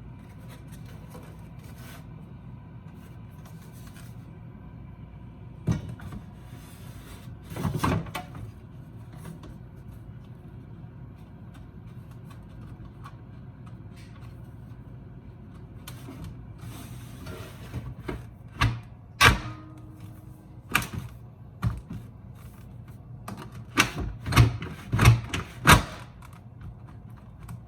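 Scattered sharp clicks and knocks of things being handled, a few at first and then a run of louder ones in the last ten seconds, over a steady low hum.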